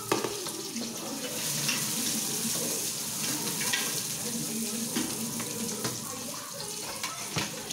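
Steady sizzling hiss of food frying in a lidded pan over a gas flame, with a few light clicks and scrapes of a utensil stirring in the pan.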